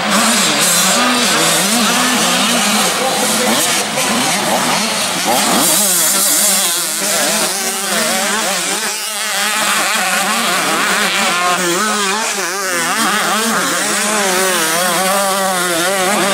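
Several mini motocross bikes racing, their small engines overlapping and revving up and down constantly as the riders work the throttles through corners and jumps.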